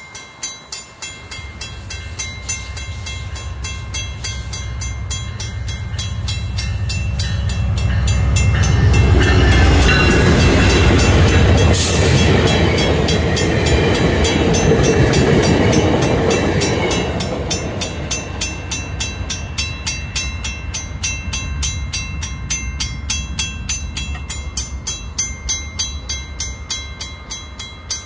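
VIA Rail P42DC diesel locomotive passing with a train of stainless-steel Budd HEP passenger cars. The rumble of the engine and wheels builds over the first several seconds, is loudest from about eight to sixteen seconds in with a sharp clank midway, then fades as the cars roll by. A level-crossing bell rings about twice a second throughout.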